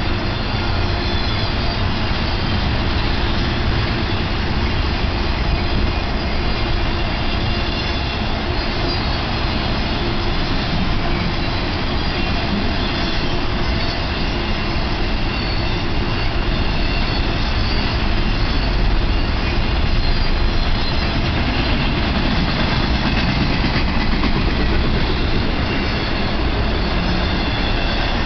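Cars of an intermodal freight train, loaded with truck trailers, rolling steadily past: a continuous noise of steel wheels on the rails.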